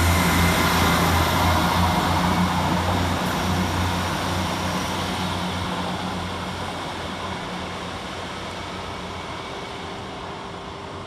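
Class 158 diesel multiple unit moving off, its diesel engine drone and running noise with a steady low hum, fading steadily as the train draws away.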